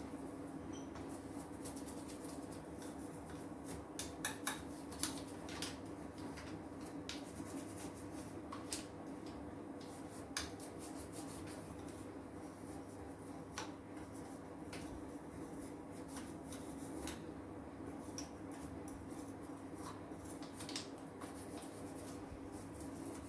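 Faint kitchen cleaning sounds: scattered light clicks and clinks of items being handled, a few louder ones about four to five seconds in and again near nine seconds, over a steady low hum.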